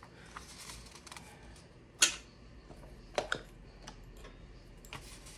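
Dollar bills and small objects being handled on a hard tabletop: a scatter of light taps, clicks and paper rustles, the sharpest tap about two seconds in and two quicker ones just after three seconds.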